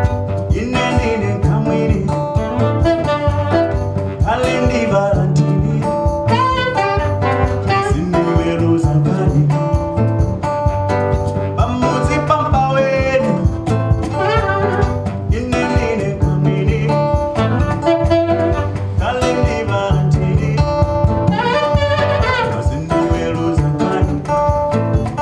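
Acoustic music with a voice singing over guitar, a bass line and a steady beat.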